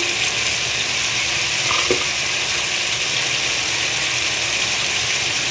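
Chicken pieces and chopped onions sizzling in hot oil in a pot over a high gas flame, a steady frying hiss.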